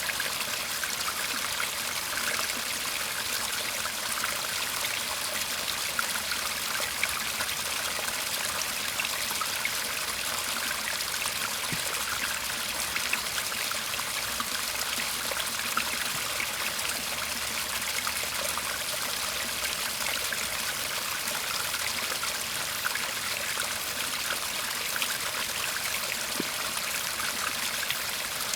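Shallow stream murmuring and trickling steadily, a continuous babble of water with many small splashes.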